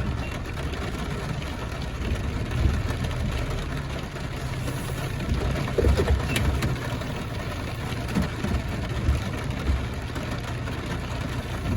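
A pickup truck's engine idling steadily, a low even hum.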